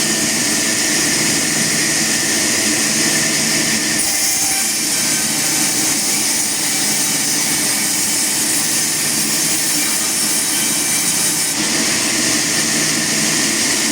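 Sawmill machinery running steadily, a continuous machine noise with a strong hiss and a low hum; its character changes abruptly twice.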